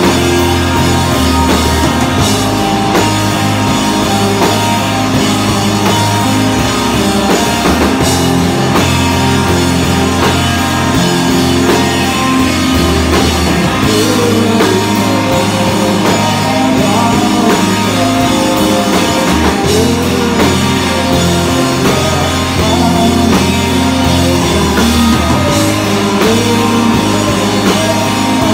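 A rock band playing loud and steady on drum kit, bass and electric guitar, with a wavering melody line over it in the middle.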